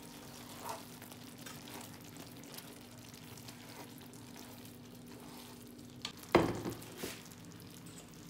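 Stir-fry vegetables in a thick, reduced sauce sizzling in a non-stick frying pan while being stirred with a wooden spatula, with small scrapes and clicks. A loud knock about six seconds in, and a smaller one just after.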